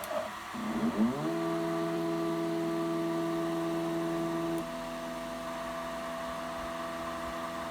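Stepper motors of a DIY CNC router driving an axis during homing: a whine that rises in pitch as the motor speeds up about a second in, then holds steady. A little past halfway it drops in level and changes pitch, typical of the homing cycle switching to a slower move.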